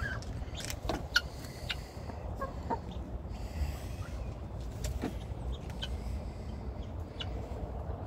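Chickens clucking softly now and then, with scattered clicks and scratches, over a steady low rumble.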